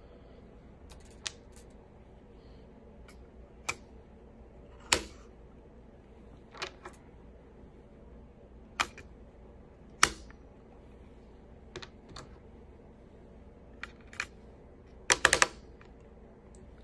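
AAA batteries being handled and pressed into a plastic battery compartment: scattered sharp clicks and taps, about a dozen in all, with a quick cluster of several near the end.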